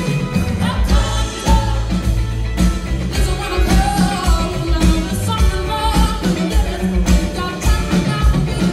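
Live band playing a soul-pop song: a woman's lead vocal over upright bass, drum kit and acoustic guitar.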